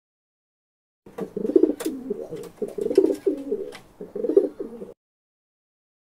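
Feral rock pigeon cooing: a run of low, throaty coos that starts about a second in and stops about a second before the end.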